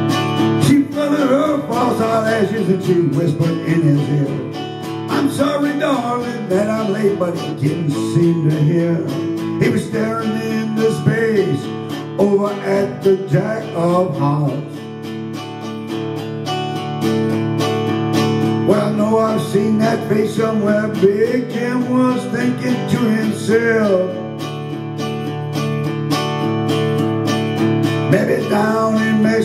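Acoustic guitar strumming a steady folk-country accompaniment, with a wavering melody line over it in short phrases.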